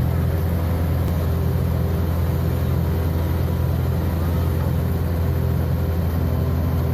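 A large engine running steadily at constant speed, with no change in pitch or loudness.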